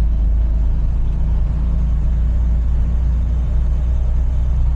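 Semi truck's diesel engine running steadily while driving, heard from inside the cab as a constant low drone.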